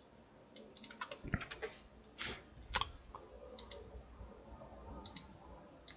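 Faint, irregular clicks of a computer mouse and keyboard, about a dozen, bunched around the first and second seconds and with a few more pairs later.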